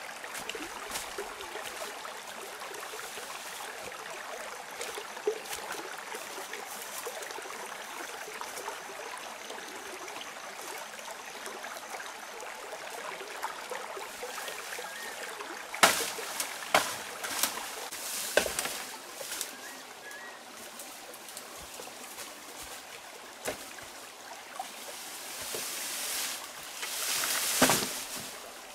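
Small stream trickling over rocks, steady. About halfway through, several sharp knocks come in, and near the end a swelling rustle of brush and leaves.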